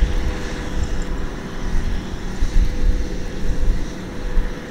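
Diesel engine of a Kubota M6040SU tractor running steadily.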